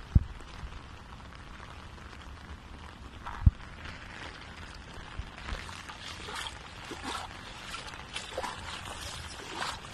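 Shallow rainwater flooding a road, with a steady hiss of light rain on the puddle and two sharp thumps from the phone being handled, just after the start and about three and a half seconds in. From about five seconds in come short, irregular splashes, about one or two a second, as someone walks through the water.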